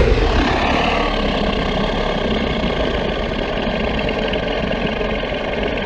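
Edited monster roar sound effect for the kaiju Gorosaurus: one long, loud roar with a deep rumble. It is loudest at the start, then holds steady.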